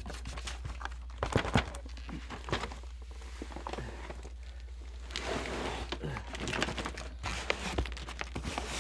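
Handling noise from fireworks packaging: scattered knocks and clicks of cardboard boxes and shells being moved and set down, with some plastic-wrap crinkling, over a steady low hum.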